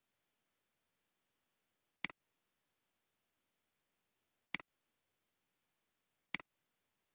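Computer mouse clicked three times, each a sharp press-and-release click, over very faint background hiss.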